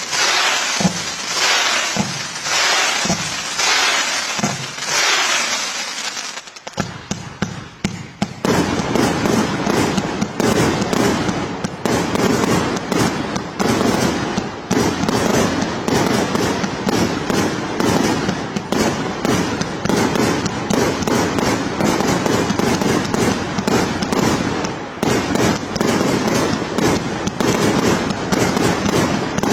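Fireworks going off: separate bangs about once a second for the first six seconds, then, after a short lull, a dense continuous crackling barrage from about eight seconds in.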